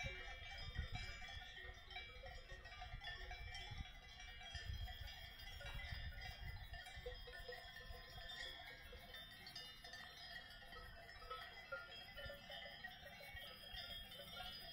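Faint, scattered ringing of bells on a grazing herd of livestock, with wind gusts rumbling on the microphone.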